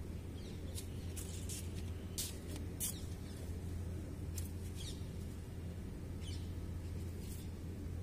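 Zebra finch giving about nine short, sharp, high-pitched calls at irregular intervals, most of them in the first three seconds, over a steady low hum.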